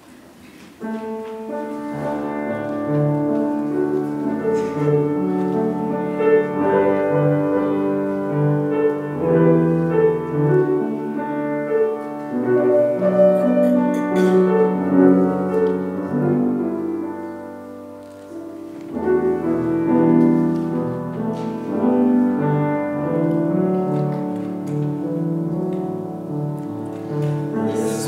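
Keyboard instrument playing slow music of long held chords over low bass notes, starting about a second in and briefly growing quieter about two-thirds of the way through.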